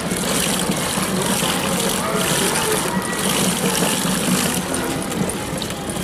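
Water and clothes sloshing in the turning drum of a pedal-driven washing machine, a steady swishing that surges about once a second.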